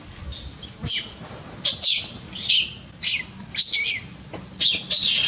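Baby monkey crying in a run of short, high-pitched squeals, about seven in a row, some sliding down in pitch.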